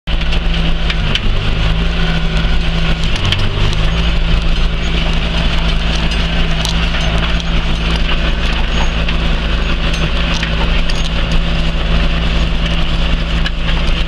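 John Deere tractor's diesel engine running steadily under load while pulling a four-furrow reversible plough through the soil. Its note wavers briefly about a second in and again around three seconds in.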